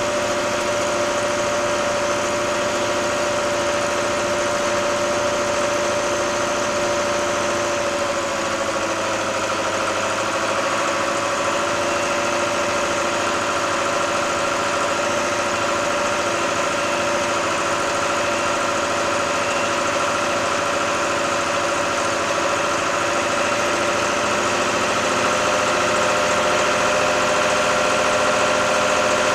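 Case 885XL tractor's diesel engine running steadily while driving, heard close up from the bonnet. Its pitch drops slightly about eight seconds in, and it gets a little louder near the end.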